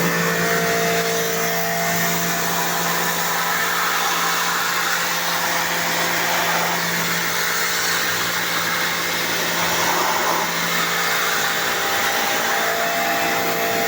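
Electric pressure washer running steadily, its motor humming under the hiss of the water spray.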